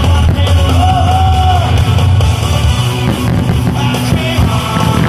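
A loud rock song with a singing voice, playing continuously.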